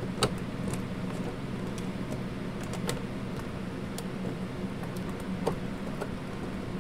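A few scattered light clicks and taps as a screwdriver works screws out of the plastic case of a Sharp EL-160 calculator, over a steady low hum.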